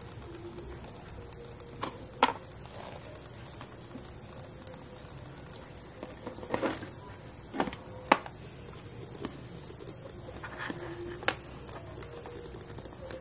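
Scattered small clicks and taps from handling tiny circuit boards, wires and a battery plug, with a few sharper clicks standing out.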